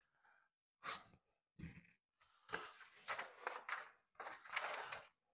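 Two short scrapes of a knife blade in a small pull-through carbide sharpener, then paper crinkling as a sheet is handled and a dull knife edge is pushed against it to test the sharpness; the edge is still not sharp.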